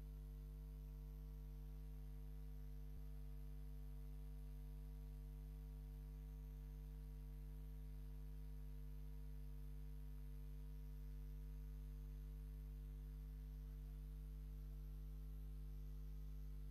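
Steady low electrical hum, a mains-type hum with several fixed tones and a faint hiss, with no voices. There is one tiny click about three seconds in.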